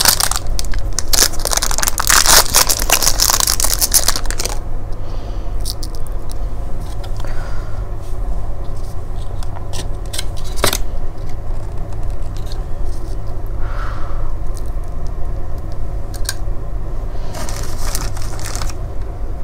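Hand-handling noises while stuffing dates with butter. For about the first four seconds there is loud rustling. After that come scattered clicks and scrapes of a plastic utensil working butter out of a small tin, with one sharp click about ten seconds in, and a little more rustling near the end, all over a steady low hum.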